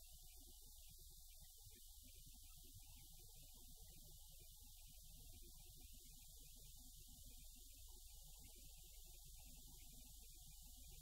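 Near silence: a faint, steady low hum and hiss, with no distinct sounds.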